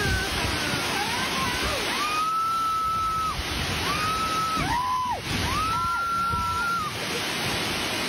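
Storm wind and driving rain make a steady rushing noise through an open field-hospital hall, while patients scream in fright over it: about four long, high cries, from about two seconds in to near the end.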